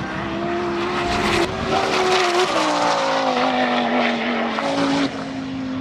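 Twin-turbo Lamborghini race car engine running hard during a drag pass. Its steady engine note steps down in pitch about halfway through.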